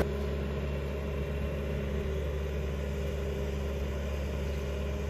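Engine idling steadily with a low, even hum.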